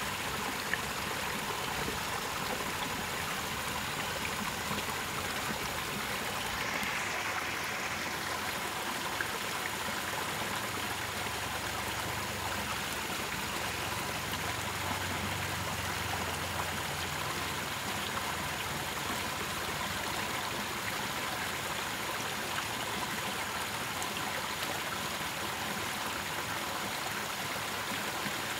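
Water running over rocks into a small ditch pool: a steady trickling rush.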